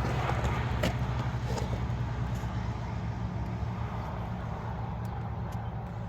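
Steady low mechanical hum with a sharp click a little under a second in.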